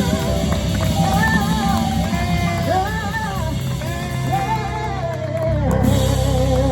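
Music with singing: held, gliding sung notes over instrumental accompaniment with a steady low bass.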